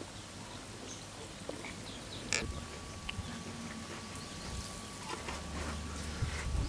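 Eggs and an aluminium cooking pot being handled: a few light clicks as eggs are set in the pot, and one sharper knock about two and a half seconds in.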